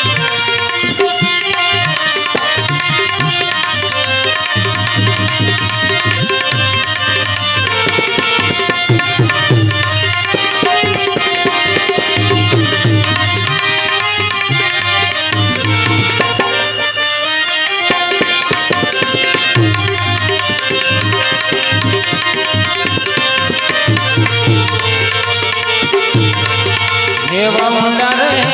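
Instrumental interlude of a Gujarati devotional bhajan: tabla keeps a steady rhythm under a melody held in long, sustained notes.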